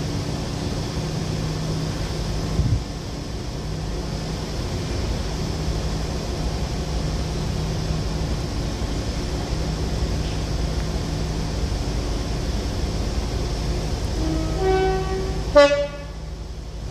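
Heritage British diesel locomotive running with a steady low engine hum, then its two-tone horn sounded briefly near the end, a lower note followed by a higher one.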